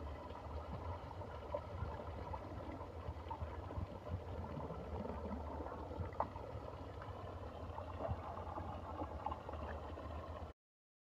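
Pond water gurgling as murrel (snakehead) fish feed on pellets at the surface, with scattered small pops and splashes over a low steady rumble. It cuts off abruptly about ten and a half seconds in.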